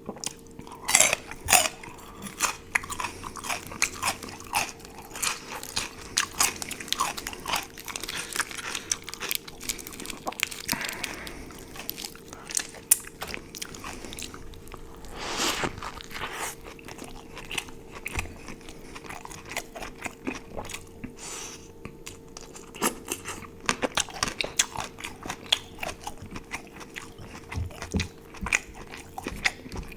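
Close-miked eating: a person biting and chewing food, with irregular crisp crunches and wet mouth sounds, loudest about a second in and again near the middle.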